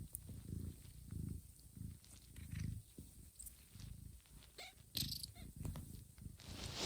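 Mother cat purring in steady pulses, each breath in and out, while she grooms her newborn kittens. A few faint clicks come in about five seconds in, and there is a brief rustle near the end.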